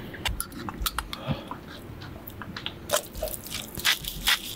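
Scattered sharp clicks and metallic clinks of a hand-held kitchen tool being worked over a steel pot, with a few louder clicks about three and four seconds in.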